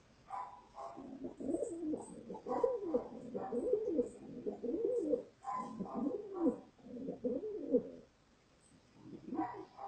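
Pigeon cooing: a long run of low, rising-and-falling coos, with a few higher calls mixed in, that stops about eight seconds in.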